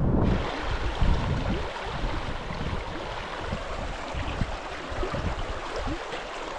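A small mountain stream running steadily, with gusts of wind buffeting the microphone.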